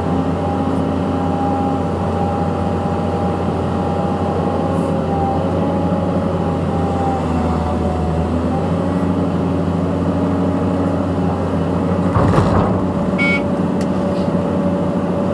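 Caterpillar 320C excavator's diesel engine running steadily while it works, with a whine that wavers in pitch. A brief clatter comes about twelve seconds in.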